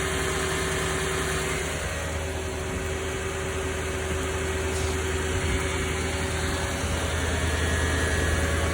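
A vehicle engine idling steadily, an even hum with no revving.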